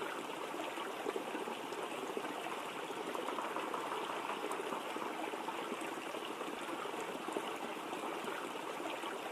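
A waterfall running steadily, an even wash of falling water.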